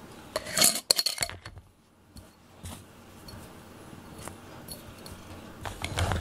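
A glass jar being handled: rustling and a few sharp clinks about a second in, scattered light ticks, then a soft knock with clinks near the end as the jar is set down on a foam mat.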